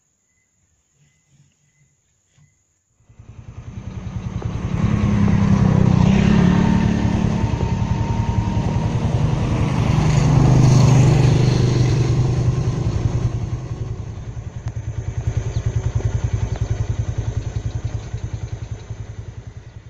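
Motor vehicle engine running with a fast, even pulse. It starts about three seconds in, grows loud, eases off near the middle and swells again.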